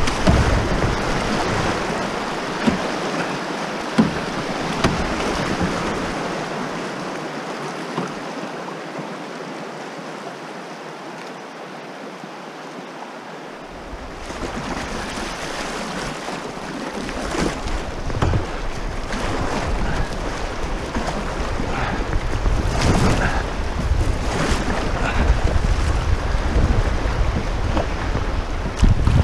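Fast, shallow river water rushing and splashing around a moving canoe, with a few sharp knocks in the first five seconds. It eases off for a few seconds in the middle, then wind rumbles on the microphone through the second half.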